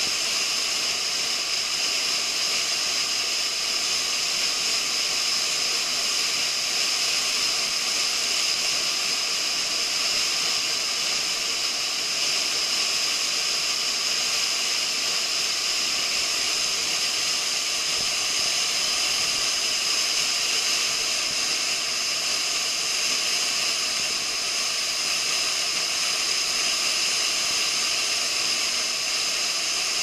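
Waterfall pouring down a rock face and splashing close by: a steady, unbroken hiss of falling water.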